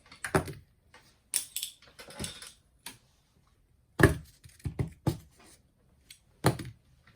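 Irregular clicks and knocks of a plastic boombox casing and its small parts being handled during disassembly, the loudest knock about four seconds in.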